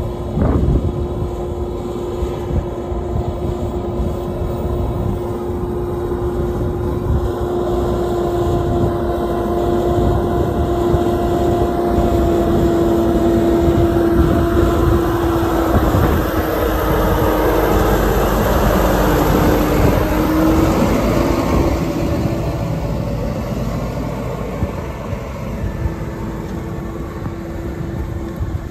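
Tractor engine running steadily under load as it pulls a stubble cultivator through the soil. It grows louder as it approaches, is loudest as it passes close by about 15 to 20 seconds in, then fades as it moves away.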